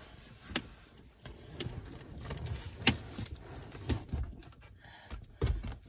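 Cloth rustling and body shifting against a car seat, with a few sharp clicks and soft low bumps from the handling.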